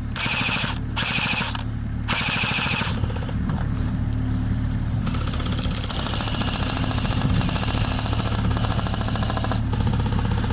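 Airsoft electric rifles firing on full auto in rapid clicking bursts: one burst of about a second and a half, a short one around two seconds in, then continuous fire from about five seconds in. A steady low hum runs underneath.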